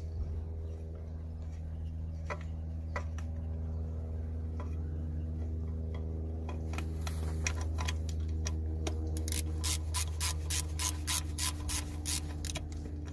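Ratchet wrench clicking as a bolt is worked loose, with a few single clicks at first and then a steady run of about four clicks a second near the end, over a steady low hum.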